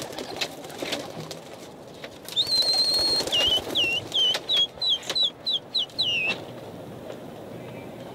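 A person whistles to put pigeons up: one held high whistle, then a quick run of about ten short dipping whistles. Under it are pigeons cooing and flapping, and knocks from the wooden loft's cage doors in the first couple of seconds.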